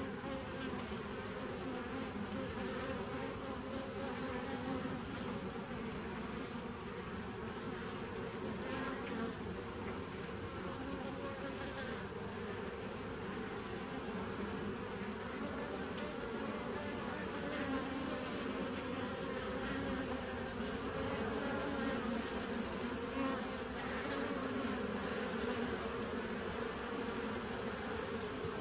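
Honey bees buzzing steadily as many fly in and out of the entrance of a nucleus colony hive, a continuous hum of wingbeats.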